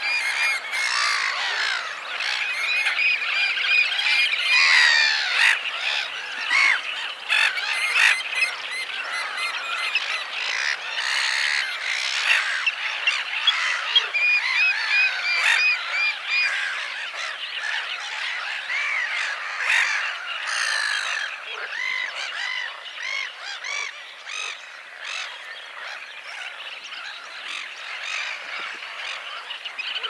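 Little grebe singing its trilling song over a dense, continuous chorus of other marsh calls, with falling trills standing out about four seconds in and again about twenty seconds in.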